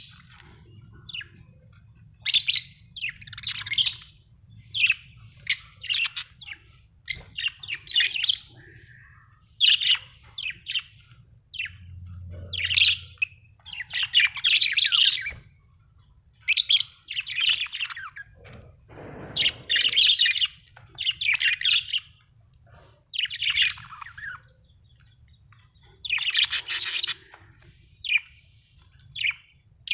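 Budgerigar chirping in short, high bursts every second or two, over a faint low hum.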